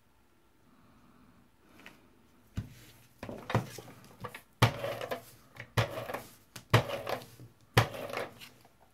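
Scotch Advanced Tape Glider (ATG adhesive gun) run across a paper card, giving about seven clattering strokes roughly once a second. The strokes start about two and a half seconds in, after a quiet start.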